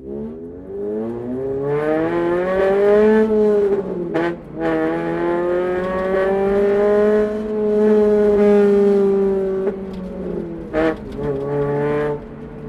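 Honda Civic Type R FD2's 2.0-litre four-cylinder VTEC engine pulling hard under acceleration through its exhaust. The engine revs climb, drop briefly about four seconds in at an upshift, climb again and hold, then fall at another shift near the end.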